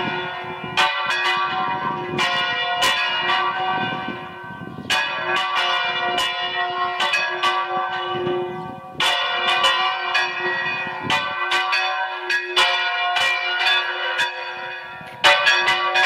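Church bells in a stone bell tower ringing the call to mass: quick, irregular strikes, a few a second, whose ringing overlaps into a continuous clang. The ringing eases off briefly a few times and then picks up again with fresh strikes.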